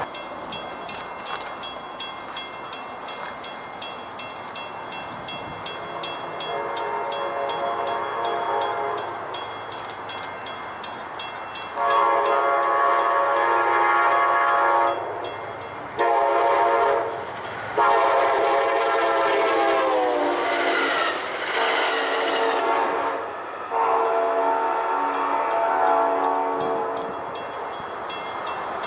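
A train's air horn blows a series of chord blasts in the distance. The first is faint; the rest are louder and mostly long, with one short blast, and one long blast sags in pitch as it ends. A steady rumble and hiss runs underneath.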